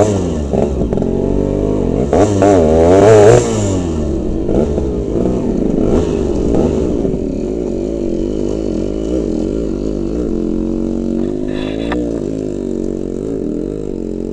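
Two-stroke Yamaha RX-series motorcycle engines revving hard, pitch rising and falling under load on a steep rocky climb, loudest about two to three and a half seconds in. More than one engine is heard at once.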